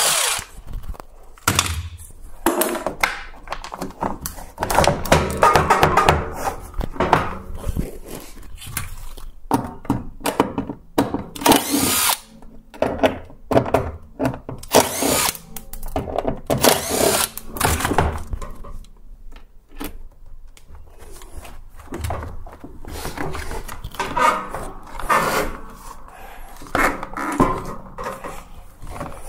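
Cordless drill-driver running in repeated short runs to back screws out of a dryer's plastic rear frame, with knocks and plastic clatter from the parts being handled in between.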